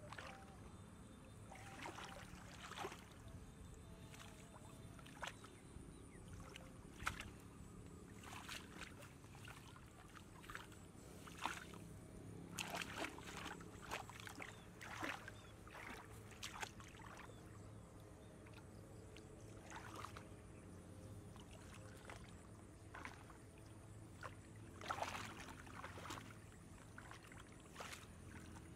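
Hands and legs splashing and sloshing in shallow muddy floodwater: faint, irregular small splashes, busiest in the middle and near the end, over a low steady hum.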